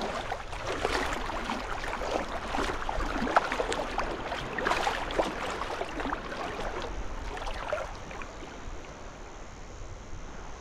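Seawater splashing and sloshing irregularly around a person wading out through the shallows, with the wash of the surf behind; the splashing eases off from about eight seconds in.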